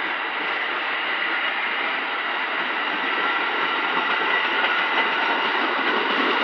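Passenger train cars rolling past on the rails as the train picks up speed out of the station: a steady rumble and rail noise that grows slowly louder.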